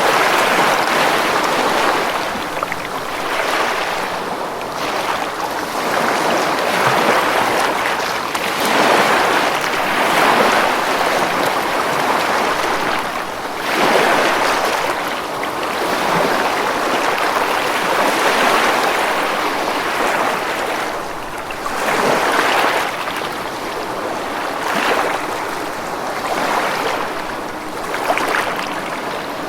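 Ocean waves breaking and washing on a beach, a continuous surf that swells every few seconds as each wave comes in.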